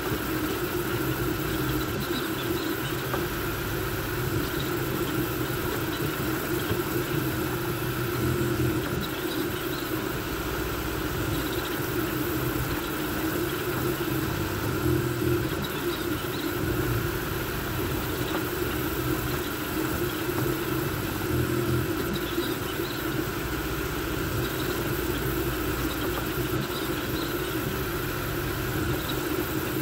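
Voron V2.4 3D printer printing at high speed: its stepper motors and cooling fans run with a continuous mechanical hum and whir that shifts slightly as the toolhead moves.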